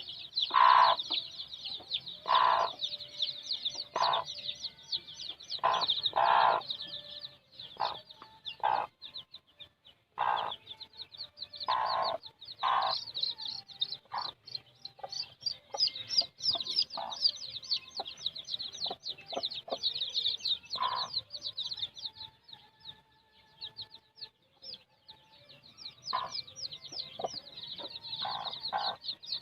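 A brood of kampung (village) chicken chicks peeping continuously in a dense chorus of high cheeps. An adult chicken clucks in short, louder calls, often in the first half and only now and then afterwards.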